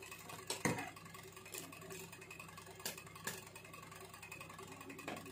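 Steel ladle stirring soup in a large aluminium pot: a few scattered light clicks and knocks of metal on metal, over a faint steady background.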